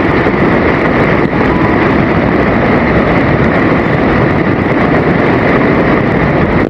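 Water rushing over a dam, a loud, steady rushing noise.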